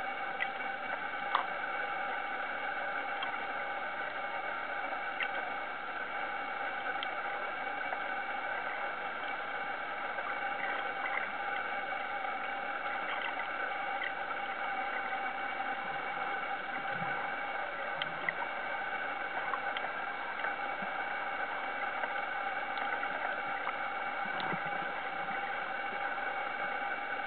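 Steady mechanical whine of several held tones, heard underwater through a camera housing, with a few scattered sharp clicks.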